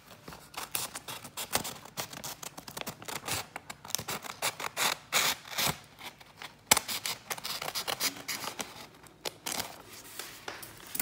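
Steel scissors cutting through a sheet of lined notebook paper: a long run of quick, irregular snips, with one sharper, louder click about two-thirds of the way through.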